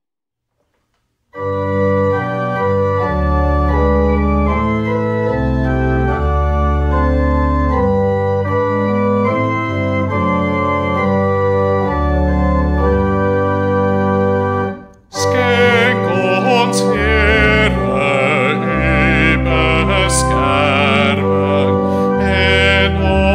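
Organ playing the introduction to a hymn in sustained chords over a low bass, starting about a second in. After a short break about fifteen seconds in, singing voices join the organ in the hymn's first verse.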